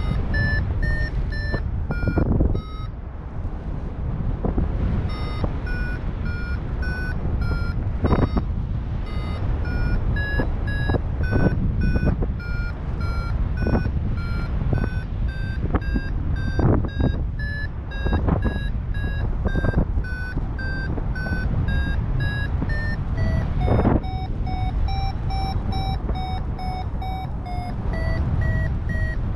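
Paragliding variometer beeping in short repeated tones, about two a second, the pitch drifting up and down as the climb rate changes: the sign that the glider is climbing in lift. Wind rushing over the microphone underneath.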